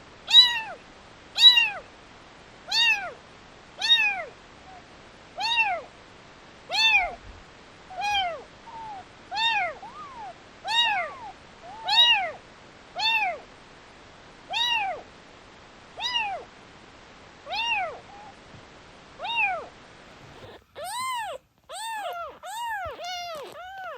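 A very young rescued kitten meowing over and over, short high-pitched calls that rise and fall, about one a second. Near the end the calls come faster and closer together.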